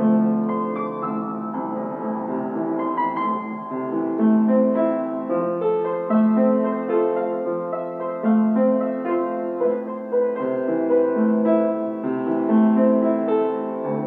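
Piano playing a slow, even-paced melody over held lower notes.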